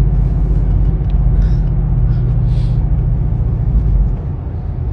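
Steady low rumble of a car's engine and tyres heard inside the moving car's cabin, easing slightly about four seconds in.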